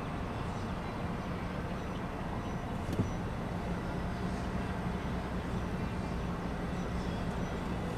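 Steady low hum of a vehicle engine running with street background noise, and one brief knock about three seconds in.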